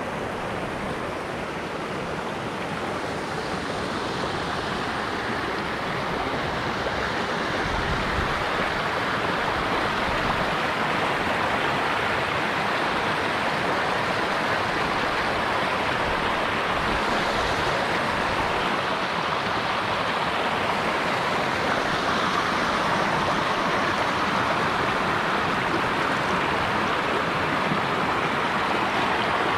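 River rapids running over rocks in a shallow cascade at low summer water: a steady rush of flowing water that grows gradually louder over the first ten seconds or so, then holds steady.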